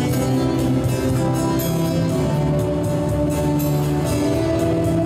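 Instrumental music from a small live band, a bağlama (long-necked Turkish lute) and an electronic keyboard, playing a steady melodic passage without singing.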